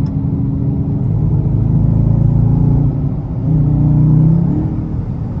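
Dodge muscle car's V8 engine running under way, its pitch and loudness rising as it accelerates about three and a half seconds in, then easing back about a second later.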